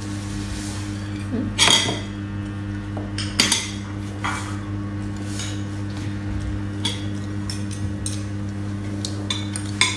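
Metal spoons and forks clinking and scraping against ceramic rice bowls and plates, in irregular sharp clinks every second or so, the loudest about two and three and a half seconds in, over a steady low hum.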